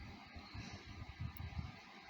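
Faint, irregular low rumbling handling noise from hands working inside a PC case.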